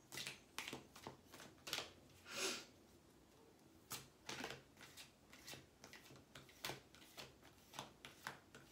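A tarot deck being shuffled by hand, cards slipping from one hand into the other in short, soft rustles about two a second, with a brief pause near the middle.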